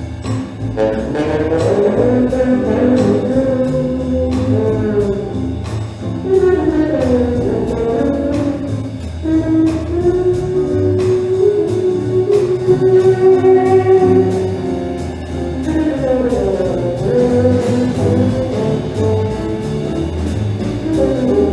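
Music with a steady beat and a melody line.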